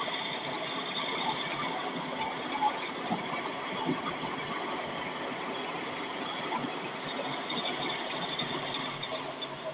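Drill press running steadily, its bit drilling into a semi-truck clutch disc.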